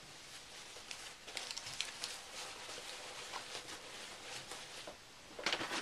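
Faint rustling and handling of a cloth apron and packaging on a desk: scattered soft crinkles and light taps, with a louder flurry near the end.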